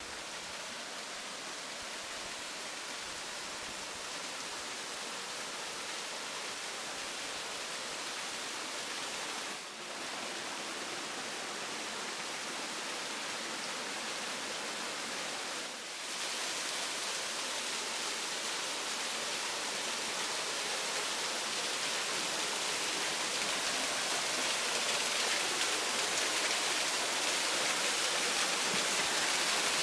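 Waterfall pouring over a rock ledge into a shallow rocky pool: a steady rush of falling water that grows gradually louder, dipping briefly twice.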